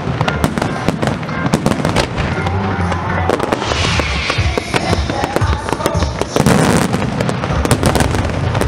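Aerial fireworks going off in a rapid string of bangs and crackles. There is a denser crackle about four seconds in and a louder burst about six and a half seconds in.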